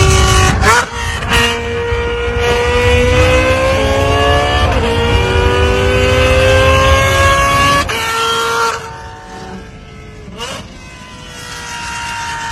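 A high-performance sports car engine accelerating hard through the gears. Its pitch climbs steadily, then drops sharply at each upshift, several times over. It grows quieter near the end.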